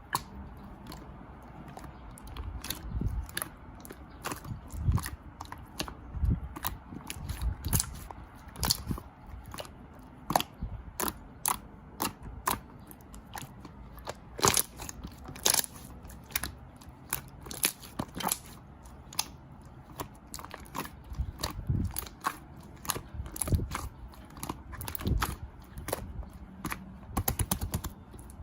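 Close-up crunchy chewing and biting: many irregular crisp crackles and clicks, with softer low mouth sounds between them.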